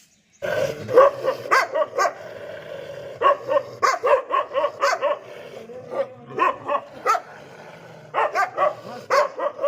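A dog barking rapidly and repeatedly, with fewer barks in the middle.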